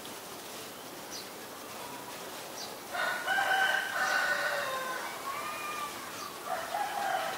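A rooster crowing: one long crow starting about three seconds in and tailing off with falling glides, then a shorter crow near the end.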